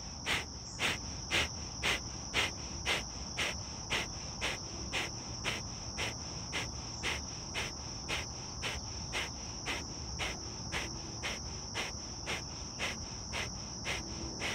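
Kapalbhati (fire breath): a rapid series of short, forceful exhalations through the nose, about two a second, getting gradually softer. A steady high-pitched insect drone runs behind them.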